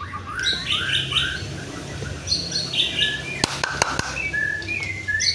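White-rumped shama singing, a quick run of repeated chirping phrases. A few sharp clicks come about three and a half seconds in.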